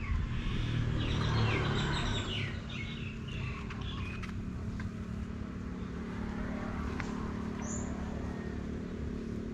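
Birds chirping: a run of quick repeated chirps over the first three seconds or so, then two short high single calls later, over a steady low hum.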